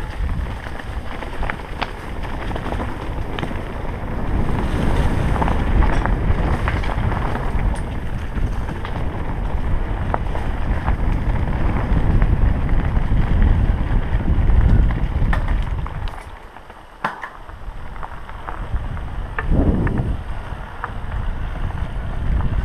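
Wind buffeting the camera microphone of a mountain bike on a fast downhill run, over the rumble of knobby tyres on a leaf-covered dirt trail, with scattered clicks and knocks of the bike rattling over bumps. It eases briefly about three quarters of the way through.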